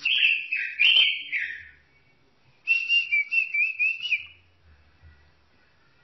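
A Pekin robin (red-billed leiothrix) singing two warbling phrases. The first starts right away and lasts under two seconds; the second starts about three seconds in and lasts about a second and a half.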